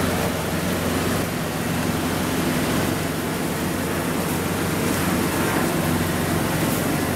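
Steady mechanical roar with a constant low hum from commercial kitchen equipment, unchanging throughout.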